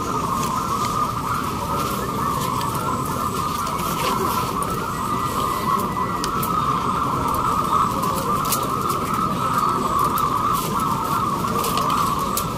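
Many caged zebra doves (perkutut) cooing at once, their calls overlapping into one continuous chorus.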